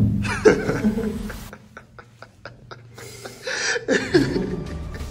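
A man laughing, a run of short breathy laughs followed by louder, voiced laughter.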